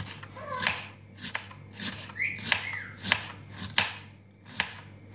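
Kitchen knife slicing cucumber on a plastic cutting board: about nine sharp cuts, roughly one every half second.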